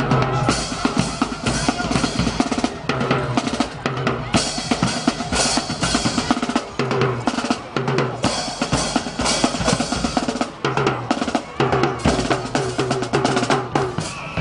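Drums playing a loud, busy beat of snare and bass drum hits, with some pitched instrument tones over it.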